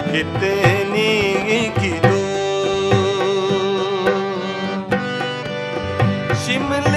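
Instrumental interlude of a folk song: harmonium and electronic keyboard playing the melody over a steady tabla-style drum beat, with one long held note in the middle.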